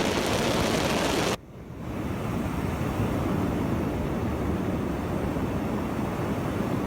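GHD Air hair dryer with a 2,100-watt AC motor, blowing steadily. About a second and a half in, the rush of air drops sharply. It comes back over about a second as a duller, lower blowing with much less hiss, the sound of a change to a lower setting.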